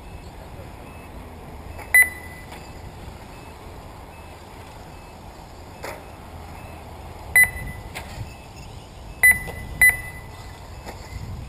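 Four short, sharp electronic beeps over a steady low outdoor background noise, two of them close together near the end. They are the race lap-counting system's beeps as radio-controlled cars cross the timing line.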